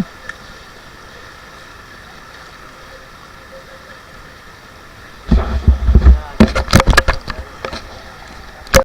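Steady rushing noise of the river around a raft. About five seconds in, a run of loud, irregular knocks and thumps with a low rumble lasts some three seconds, and one more sharp knock comes near the end.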